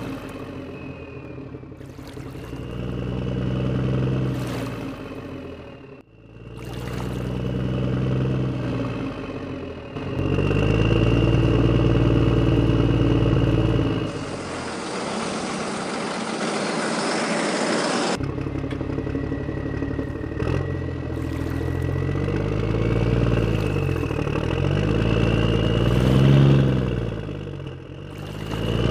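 Heavy vehicle engine sound effect, revving up and down in pitch in several pieces that break off suddenly. About halfway through, the engine gives way for around four seconds to a steady rushing hiss.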